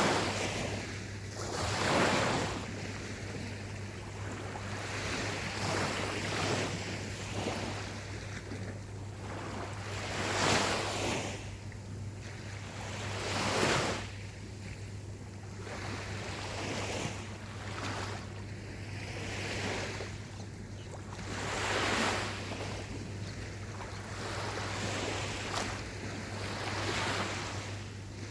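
Gentle ocean waves breaking on a beach, the surf swelling and washing back every few seconds. A steady low hum runs underneath.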